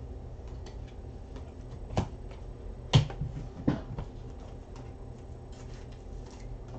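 Trading cards and packaging being handled on a table: faint small ticks and three sharp taps within about two seconds, the middle one loudest. A low steady hum runs underneath.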